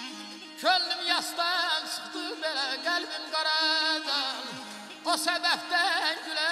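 A male Azerbaijani aşıq sings a wavering, heavily ornamented melody over his own strummed saz. The voice enters about a second in, breaks off briefly near the middle and comes back.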